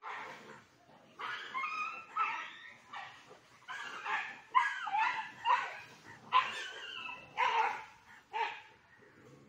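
Dogs scuffling, with a run of about a dozen short yelps, whines and barks that stops near the end.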